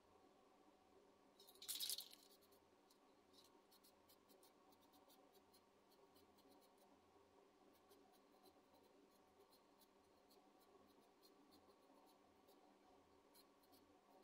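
Near silence: faint light ticks and scratches as small 3D-printed model pallets are handled and set on their stands, over a faint steady hum. A brief scratchy hiss about two seconds in is the loudest sound.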